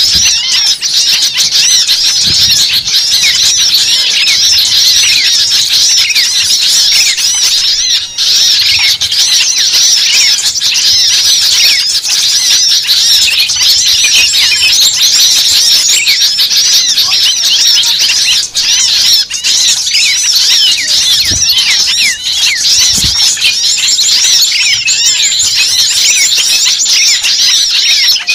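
Many small birds chirping and calling at once in a loud, continuous, dense chorus of overlapping high chirps.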